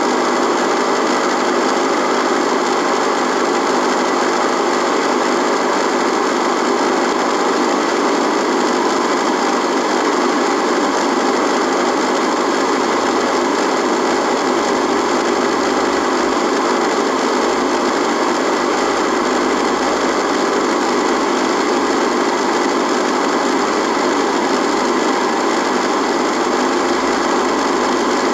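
A radio's electrical buzz: a steady, loud buzzing hiss with a constant hum, not changing at all.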